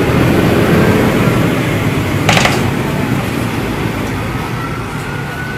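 Steady engine and traffic noise from trucks and a bus on the road. A brief sharp crackle comes a little over two seconds in.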